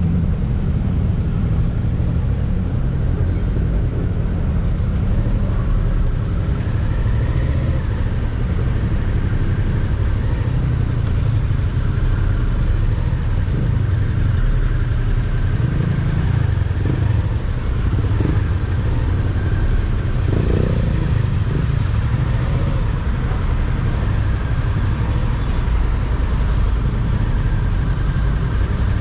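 Motorcycle engine running steadily at low speed while the bike creeps through slow traffic, with surrounding traffic noise. The sound is a constant low engine note with no revving.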